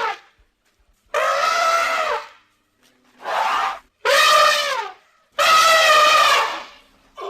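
Elephant trumpeting: four separate calls with short gaps, the last one the longest.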